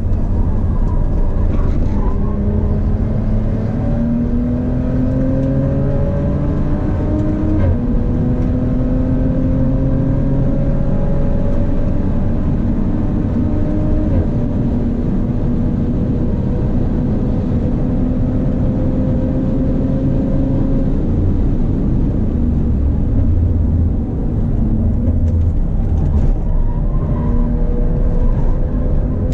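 Audi B9 RS4's twin-turbo V6 with a Milltek exhaust under hard acceleration on track, heard from inside the cabin: the engine note climbs and drops sharply at upshifts about 7 and 14 seconds in. It eases off a little past the middle and climbs again near the end, over steady road and wind noise.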